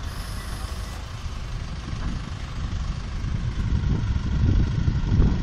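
Isuzu aerial work platform truck's engine running, a steady low rumble that grows louder about four seconds in.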